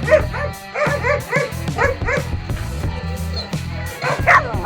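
West Siberian Laika barking in a rapid, steady run of short, high barks, about three a second, over background music.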